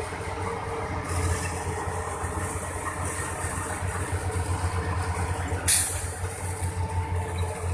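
Heavy diesel engine running at a steady low drone that grows louder about a second in, with one short sharp hiss of released air near the end.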